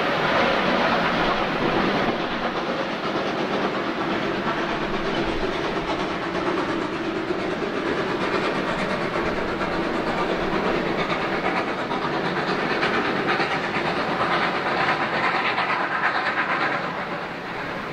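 Ex-Queensland Railways steam locomotive No. 218A running with a train, a steady rush of exhaust and steam with wheels on the rails, dipping slightly near the end.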